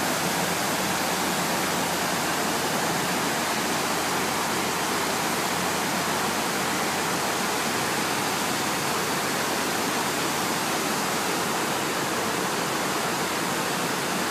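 Water falling in sheets down the walls of the 9/11 Memorial reflecting pool into the basin, a steady, even rush of cascading water.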